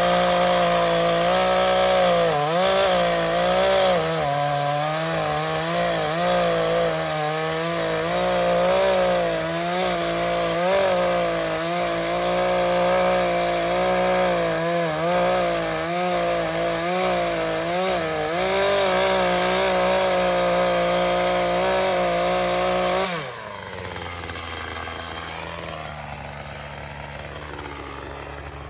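Chainsaw cutting into a dead pine tree at full throttle, its pitch dipping and recovering as the chain bites. It drops back to idle about 23 seconds in.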